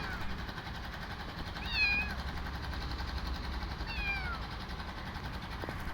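Young kitten meowing twice, about two seconds apart, each a short high call that falls in pitch, over a steady low hum.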